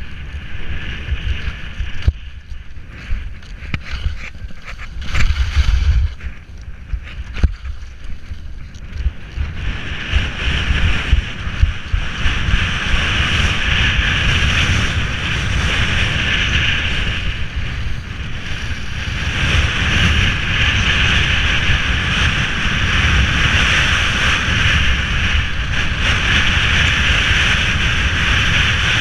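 Skis sliding and scraping on spring snow during a downhill run, with wind buffeting the action camera's microphone. For the first several seconds the skis clatter irregularly over chopped-up snow; after that there is a steady hiss of the skis running over smoother snow.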